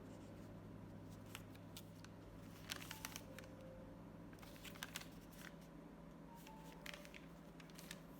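Faint rustling and a few soft crisp clicks of paper packaging being handled, in small clusters a few seconds apart.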